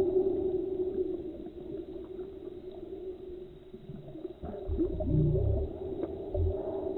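Slowed-down slow-motion audio: a steady, deep drone, with drawn-out low thumps two-thirds of the way through and again near the end as the walleye flops on the ice beside the hole.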